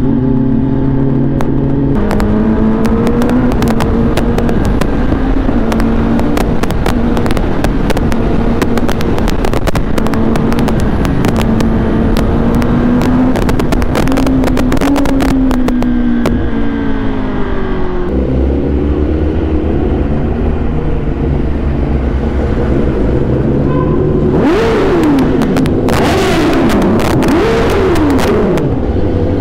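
Kawasaki Ninja ZX-10R's inline-four engine running under way as the bike is ridden, with wind noise over the mic. The engine note steps to a new pitch about 2 seconds in and again around 18 seconds in as gears change, and swoops up and down several times near the end.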